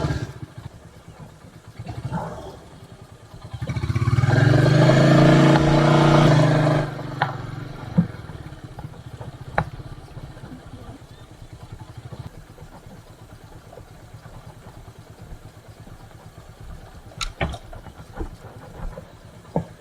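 Motorcycle engine running loudly for about three seconds, starting about three and a half seconds in, then dropping away. A few sharp clicks or knocks follow.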